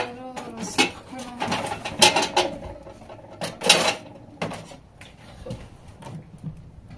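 Metal cooking pots and a pot lid clanking as they are handled and set down: a string of sharp clanks with a short ring, the loudest about two seconds in and again about three and a half seconds in.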